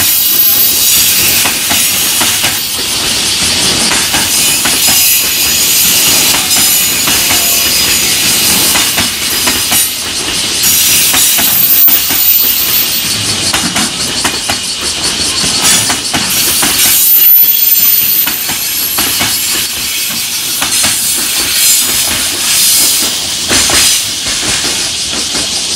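Long container freight train's flat wagons passing at speed: a loud rushing hiss of steel wheels on rail, broken by repeated sharp clacks as the wheels cross rail joints.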